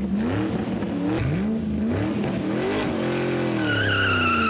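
Sound effect of a car engine revving up and down several times. A tire squeal comes in near the end.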